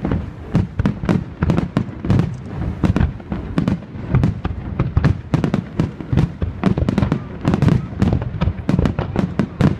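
Aerial fireworks display going off in a rapid, unbroken run of bangs and crackles, several a second, with deep booms beneath them.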